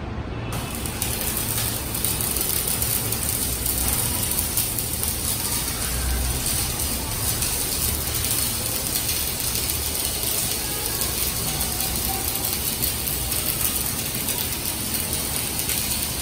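Stick (shielded metal arc) welding arc crackling and sizzling steadily as an electrode burns along a bead on steel plate, starting about a second in.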